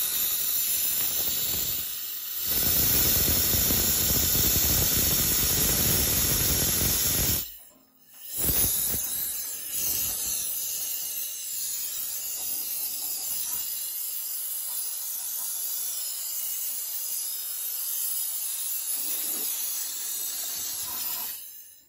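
Compressed air hissing from an airline blow nozzle, blowing dust and debris out of a gas heater's pilot burner. A strong blast runs for about seven seconds with a brief dip near two seconds, stops for a moment, then a weaker steady blast continues until just before the end.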